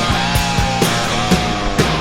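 Rock music with distorted guitar and a steady, fast drum beat.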